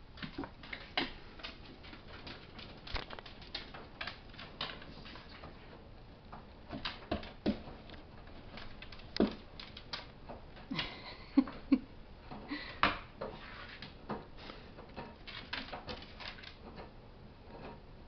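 Dogs moving about on a hard floor: scattered, irregular light clicks and taps of claws. Two louder short sounds a little past the middle stand out.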